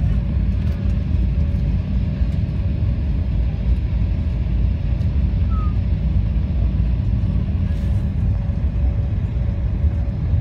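Steady low rumble of an airliner taxiing, heard from inside the passenger cabin, with a faint steady hum above it.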